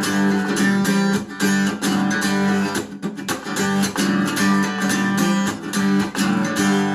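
Instrumental song passage with acoustic guitar strumming chords in a steady rhythm, and no singing.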